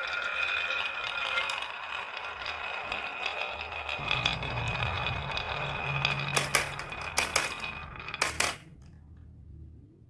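Marbles rolling and rattling down a marble run track, with a run of loud sharp clacks about six to eight seconds in as they strike and drop. The rolling stops suddenly after that and only a faint tail remains.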